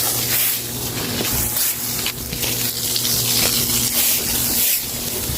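Stiff broom scrubbing a wet floor in repeated strokes through running water, giving a splashy hiss, with a steady low hum underneath.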